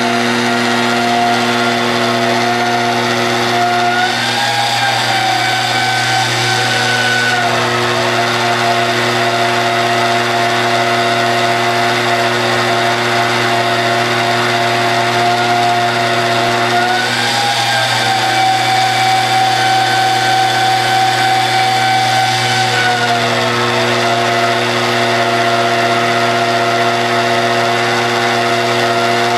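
Magnetic drill boring through the steel of a tractor bucket, its motor whining steadily under load. The pitch rises twice for a few seconds and settles back.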